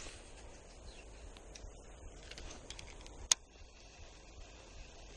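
Quiet outdoor ambience with a faint steady low rumble, broken by one sharp click a little over three seconds in.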